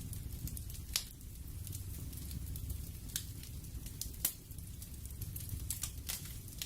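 Crackling fire ambience: a steady low rumble with scattered fine crackles and a few sharp pops, loudest at about one second in and again near the middle.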